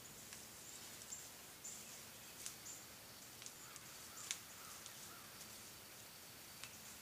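Faint outdoor bush ambience: small birds giving short, high chirps again and again, with a few lower calls and several sharp ticks, the loudest about four seconds in.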